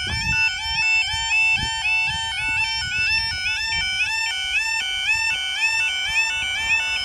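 Automatic half barrier level crossing alarms sounding: two tones alternating rapidly, with more than one alarm warbling out of step. Near the end the rushing noise of an approaching Northern Class 156 diesel multiple unit starts to rise under them.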